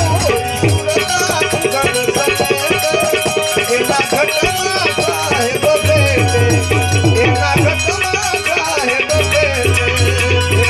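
Bhajan music: a wavering melody over fast, even rattling percussion, with a low drum beat that comes back in about halfway through.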